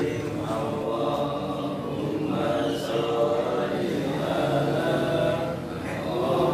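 A man's voice chanting the adhan, the Islamic call to prayer, in long drawn-out sung phrases, with a short pause near the end.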